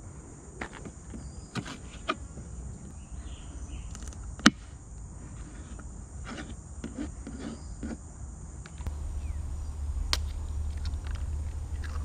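Kitchen knife cutting sweet pepper on a plastic cutting board: scattered single chops and taps, with one sharper knock about four and a half seconds in. A steady high hiss runs underneath, and a low rumble comes in near the end.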